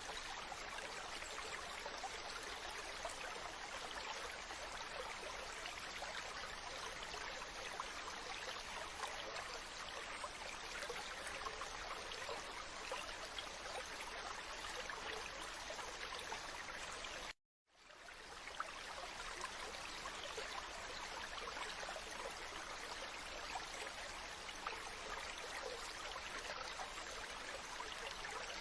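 Steady rushing water from an ocean ambience sound-effect track, with no rise and fall of separate waves. About two-thirds of the way through it cuts out to silence for a moment, then fades back in, like a loop splice.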